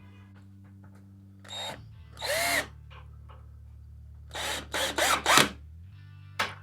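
Power drill running in several short bursts, the motor winding up in pitch in the longest burst about two seconds in, over steady background music.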